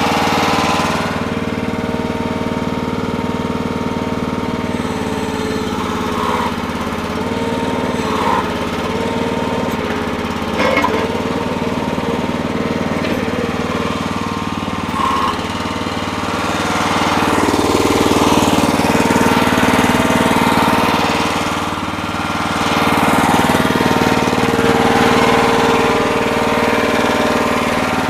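Small pull-start gas engine on a Red Rock mini backhoe running steadily just after starting on the first pull after a week unused, with a few light knocks and two stretches in the second half where it grows louder under more throttle or load.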